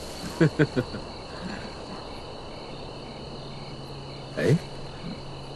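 Crickets chirping steadily as night ambience, with a few short bursts of men's laughter about half a second in and one short, low falling vocal sound about four and a half seconds in.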